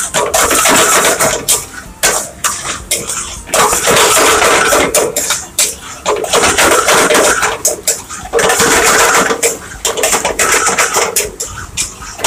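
A metal ladle scraping and knocking against a frying pan as onions, ginger, garlic and chilli are stirred and sizzle in hot coconut oil. The clatter comes in spells of a second or two with short pauses between strokes.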